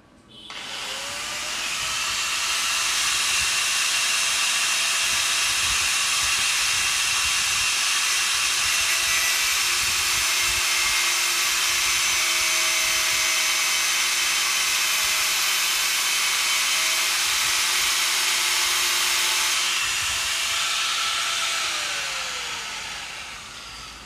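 Electric angle grinder spinning up and cutting through a steel engine timing chain with a loud, steady grinding hiss, then winding down with a falling whine about twenty seconds in.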